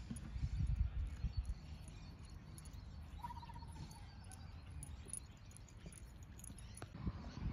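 Outdoor ambience with a low wind rumble on the microphone, heaviest in the first second. About three seconds in, a bird gives one short, rapid trill.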